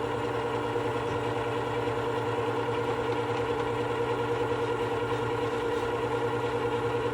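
Work Sharp WS3000 sharpener's motor running steadily, spinning its abrasive-covered glass platen with an even hum.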